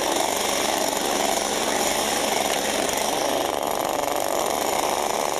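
Several small two-stroke petrol chainsaws running steadily together while being juggled. Their carburettors are set so the chains spin continuously even at idle.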